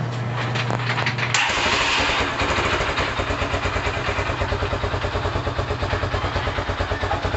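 Motorcycle engine being started: the electric starter cranks with a steady whine for about a second and a half, then the engine catches and settles into a steady idle with an even, rapid beat.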